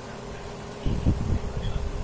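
Soft, irregular low bumps and rumble as batter is poured through a wire-mesh sieve into a plastic tub, starting about a second in, over a steady low hum.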